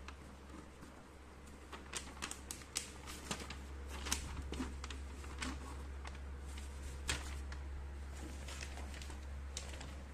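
Paper instruction leaflet rustling and crackling as it is handled and unfolded, in irregular sharp crinkles, over a steady low hum.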